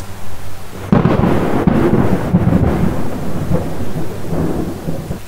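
Thunder sound effect: a sudden crack about a second in, then a rumble that fades away over the next few seconds.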